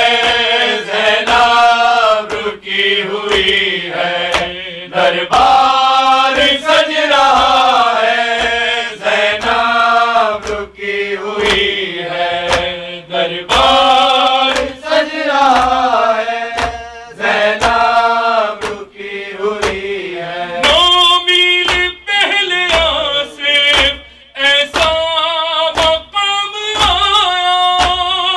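A man chanting a devotional recitation solo into a microphone, in long melodic phrases with held, wavering notes. Regular dull thumps sound beneath his voice.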